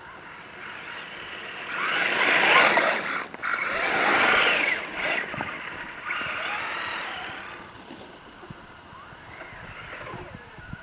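1/10 scale Traxxas Ford F-150 Raptor RC truck with a Velineon (VXL) brushless electric motor, whining with rising and falling pitch over the hiss of its tyres on packed snow as it drives up close and away again. It is loudest for a few seconds early on as it passes near, with a shorter rise a little later.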